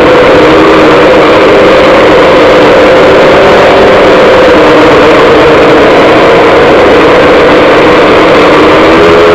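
DJI F550 hexacopter's brushless motors and propellers running steadily in flight, heard loud and close from a camera on the frame, with a dense rush of prop wash. The motor tones waver slightly and dip briefly near the end.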